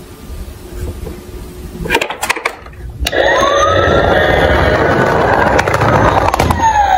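Tonka toy fire truck's electronic siren starting about three seconds in with a rising wail that holds and then falls away near the end, over the low rumble of its wheels rolling across a hard surface. A few clicks come before it as the truck is handled and set down.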